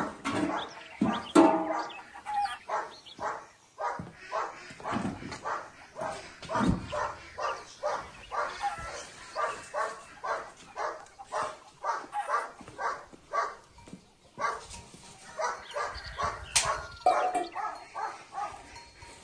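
A dog barking over and over, short barks about twice a second.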